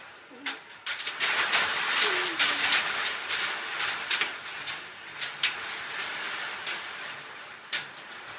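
Marble-size hail and heavy rain pelting down, heard from inside a tornado shelter. It is a dense clatter of sharp hits over a steady hiss, heaviest from about a second in until about halfway through, then thinning out.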